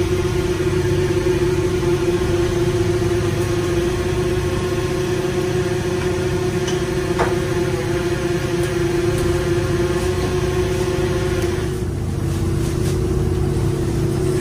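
Fishing boat's engine running steadily: a constant mechanical drone with a strong, even hum.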